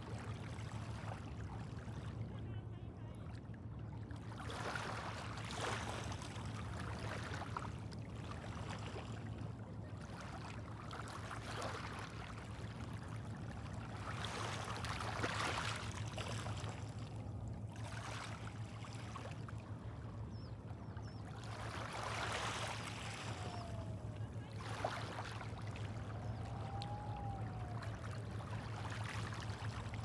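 Small sea waves washing onto the shore, swelling and falling back every few seconds, over a steady low hum. A couple of faint rising-and-falling calls come near the end.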